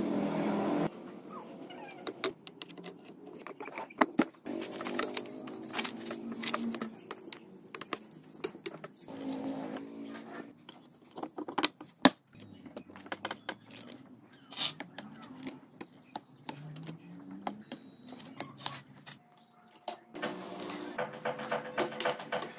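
Metal clinks and clatter of engine parts and hand tools being handled while a two-stroke motorcycle engine is reassembled, a long string of sharp clicks and knocks.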